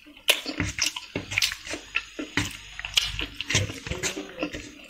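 Close eating sounds: wet squishes and irregular clicks as rice and chicken liver fry are mixed by hand on a stainless steel plate and eaten.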